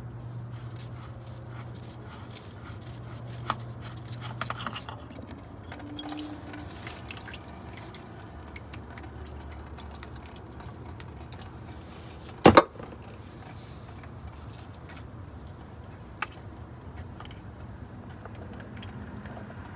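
Scattered small clicks and knocks of transmission parts being handled over a low steady hum, with one sharp, loud knock about twelve and a half seconds in.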